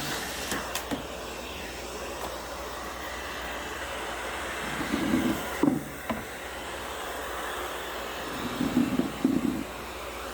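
Vacuum cleaner running steadily, with two louder, lower-pitched swells about five seconds and nine seconds in and a brief knock between them.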